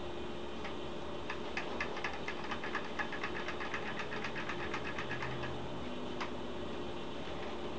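Dupli-Color HWP103 clear coat aerosol can being shaken, its mixing ball rattling in quick, even clicks about five a second for some four seconds, mixing the paint before spraying. A steady hiss runs underneath.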